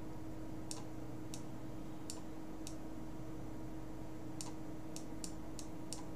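Stylus tip tapping and clicking on a pen tablet as a line of handwriting is drawn: about nine short, sharp clicks at irregular spacing, coming faster near the end, over a steady low hum.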